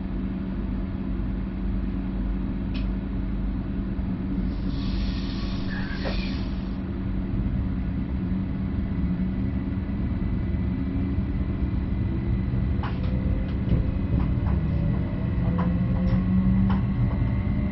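Stadler FLIRT Sm5 electric commuter train, heard from the driver's cab: a steady low rumble, a short hiss of air about five seconds in, then the traction motors' whine rising in pitch as the train gathers speed. Sharp clicks come at irregular intervals in the second half.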